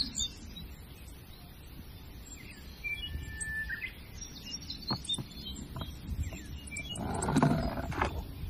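Small toy monster truck splashing into a tub of water near the end, the loudest sound here, with birds chirping in the background. A few sharp clicks come about five seconds in.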